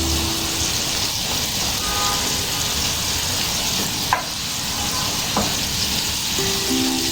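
Bone-in ribeye steak sizzling in butter in a frying pan: a steady hiss, with a sharp click about four seconds in and another about a second later. Background music plays briefly at the start and again near the end.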